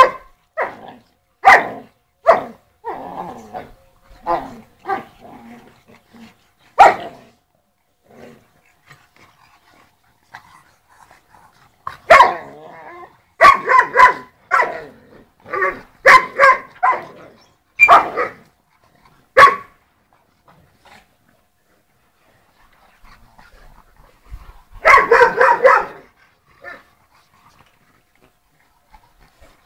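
Sarplaninac and Shar-Pei dogs barking in short, sharp barks during rough play. The barks come in clusters with quiet gaps between them: a few near the start, a quick run in the middle, and a dense flurry near the end.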